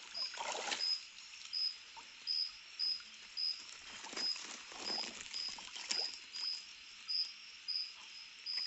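An insect chirping steadily, short high chirps about two a second, over splashing and dripping water as a landing net is lifted from a stream and a catfish is handled in it. The splashes come about half a second in and again around four to six seconds.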